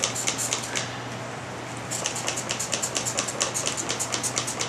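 Trigger-spray bottle being pumped rapidly, giving short spritzing hisses about six a second, with a pause of about a second near the start. The sprayer is struggling to squirt properly.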